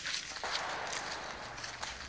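Quiet footsteps and shuffling on a concrete shooting range.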